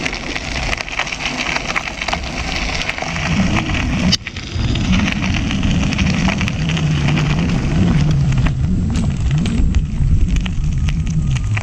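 Ninebot One E+ electric unicycle's tyre rolling over a gravel path, a dense crackle of grit and small stones. A low wavering hum joins about three seconds in.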